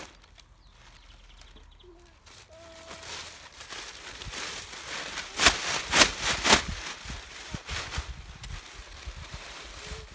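Four sharp knocks in quick succession about halfway through, over faint rustling.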